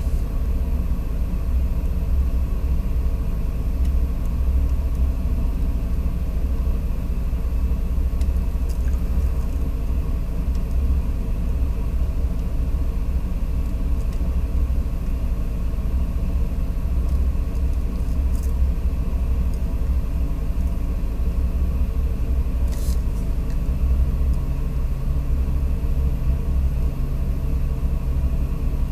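A steady low rumble with a few faint ticks. A low hum joins it a little over three-quarters of the way through.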